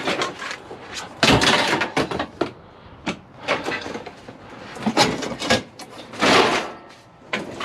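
Scrap metal being handled and tossed onto a pile: a run of irregular knocks and clatters, with a longer rushing, scraping noise about six seconds in.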